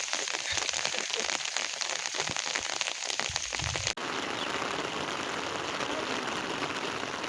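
Rain falling, a close patter of many separate drops. About four seconds in, an abrupt cut changes it to a steadier, even rain hiss.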